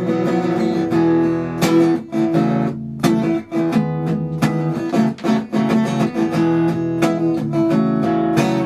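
Acoustic guitar strumming chords in an instrumental break of a live song, with no singing.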